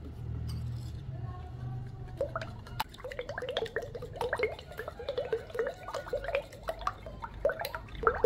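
Raw eggs being beaten with a spoon in a bowl: rapid, irregular wet squelching with the spoon clicking against the bowl, getting going about two to three seconds in. A low steady hum underlies the first few seconds.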